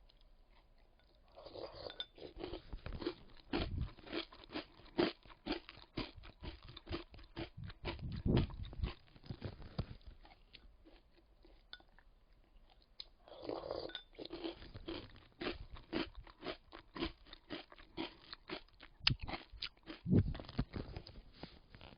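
Chewing crunchy chocolate-almond granola, a fast run of crisp crunches. It comes in two bouts with a short pause about halfway through.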